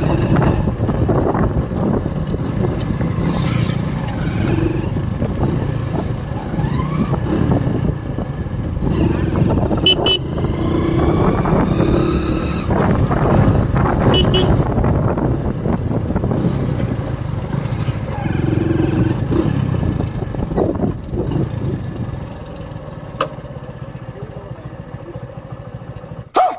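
Motorcycle riding along a rough road, engine running under steady road and wind noise. A horn toots briefly about ten seconds in and again about four seconds later. The noise drops off over the last few seconds.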